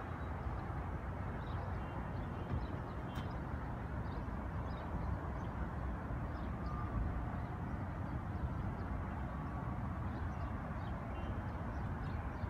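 Steady outdoor city ambience: a low, even rumble of distant traffic and wind on the microphone, with faint short high chirps scattered throughout.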